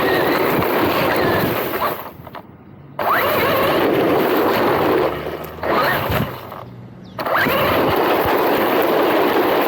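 MJX Hyper Go 16212 1/16-scale brushless 4WD RC car driven in bursts of throttle: a rising motor whine over a loud rush of wheels and drivetrain. It drops off briefly about two seconds in and twice more between five and seven seconds in.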